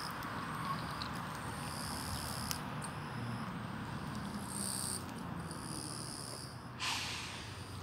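Outdoor background noise with short, high-pitched calls that come and go every second or so. A brief rustle of handling noise comes about seven seconds in.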